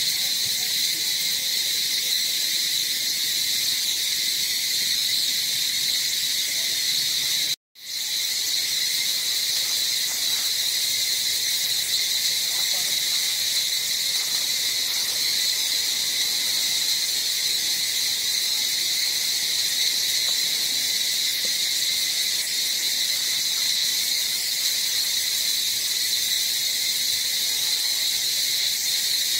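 Dense chorus of insects chirring, loud and high-pitched with two distinct pitch bands, unchanging throughout apart from a split-second dropout about eight seconds in.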